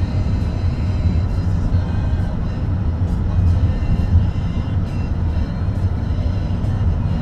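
Steady low rumble of a car's engine and tyres on the road, heard from inside the cabin while driving at an even speed.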